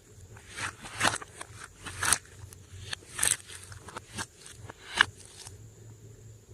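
Slime being mixed and squished, giving short sticky crackles and clicks about once or twice a second; they thin out after about five seconds.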